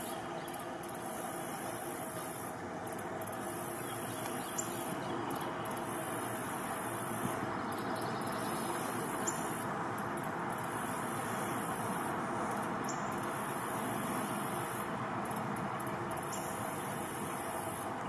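Steady outdoor background ambience: an even rushing noise with a constant high hiss above it that breaks off briefly every few seconds, and no clear birdsong.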